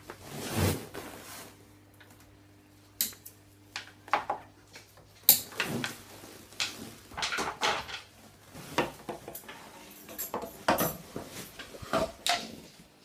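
Metal snap clips and hardware on swing attachments clinking and clicking in irregular clatters as a trapeze handle and triangle ring are unclipped and clipped on, after a brief rustle at the start.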